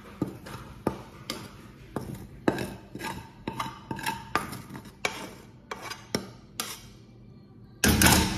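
A wok being knocked and scraped against a glass baking dish as cooked rice noodles are emptied into it: a run of short knocks and scrapes, about two a second, ending in a louder, longer clatter near the end.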